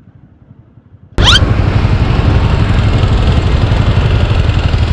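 Faint low rumble, then about a second in a sudden quick rising sweep followed by a loud, steady motorcycle engine idling.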